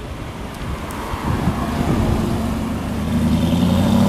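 Aston Martin sports car engine passing close by under power. Its note climbs steadily and grows louder toward the end as it pulls away.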